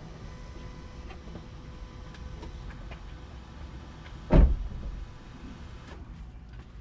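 Supercharged Scion FR-S flat-four engine running at idle with a faint steady whine, and a single loud thump about four seconds in.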